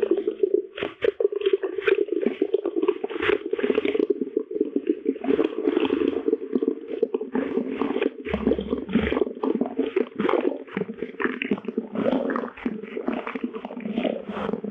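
A Monster energy drink can being opened and its carbonation fizzing, slowed far down and pitched low, so the hiss becomes a dense, irregular crackling rumble.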